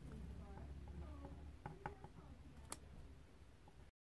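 Quiet room tone with a few light clicks and taps of a ballpoint pen writing on paper on a desk. The sound drops out for an instant near the end.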